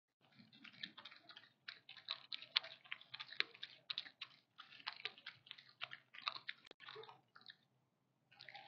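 Raccoon feeding on birdseed scattered on a wooden deck: a fast, irregular run of crunching and clicking as it chews the seed. It pauses briefly near the end, then starts again.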